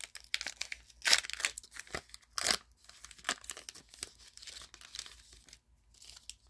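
Wrapper of a 2022 Topps Heritage baseball card pack being torn open and crinkled by hand, in irregular bursts that are loudest about one and two and a half seconds in, dying down to faint rustles near the end.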